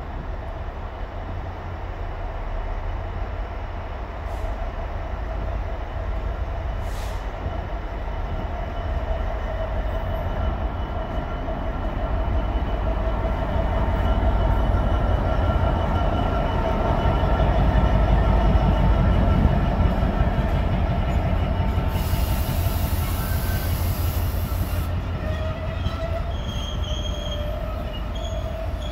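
Freightliner Class 66 diesel locomotive's two-stroke V12 engine running as it hauls a loaded ballast train past, a deep rumble that swells to its loudest about two-thirds of the way through. The loaded wagons then roll by with wheel squeal near the end, and a brief hiss after the locomotive has passed.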